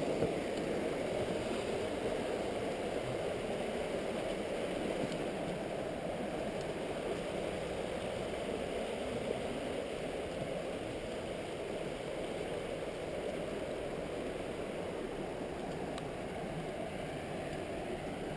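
Steady rush of water flowing over the Hillsborough River rapids, an even low rushing noise.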